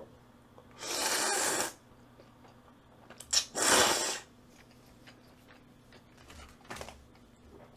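Two long slurps of jjajangmyeon (black-bean-sauce noodles), one about a second in and one near four seconds, with a few faint clicks in between.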